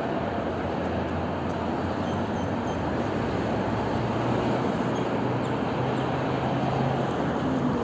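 Steady traffic noise: an even rush with a low engine hum underneath.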